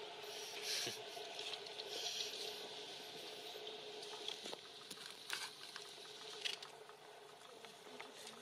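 Faint rustling and soft crackling of dry leaf litter, with a few small ticks, over a faint steady hum.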